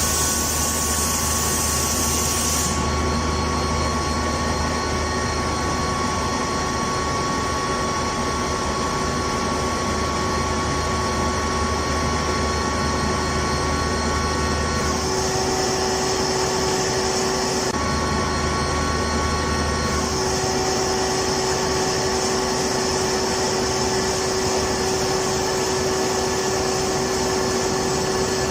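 Industrial air compressor running, a steady mechanical drone with hiss and a few steady tones. A high hiss drops away a few seconds in; about halfway the low hum cuts out, comes back briefly, then gives way to a higher hiss and a steady mid tone.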